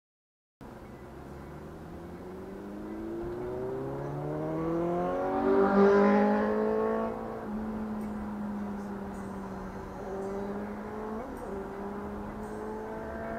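A vehicle engine accelerating: its pitch climbs steadily and is loudest about six seconds in, then falls back to a lower pitch and climbs slowly again.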